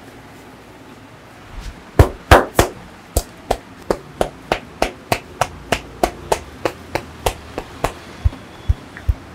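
Percussive massage strokes: a barber's hands striking the client's body in a steady rhythm of about three slaps a second. The first few strokes are the loudest, and the last few, near the end, sound duller.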